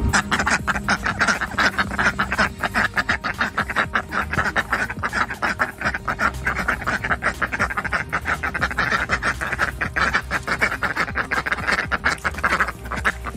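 Several domestic ducks quacking rapidly and without a break, an excited chatter of many overlapping short quacks. It is the begging noise of ducks expecting food as a bowl is held over them.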